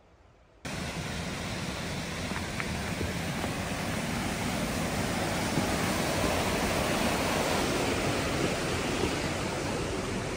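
Steady outdoor rushing noise, with no tone or rhythm in it. It cuts in abruptly about half a second in and grows slightly louder.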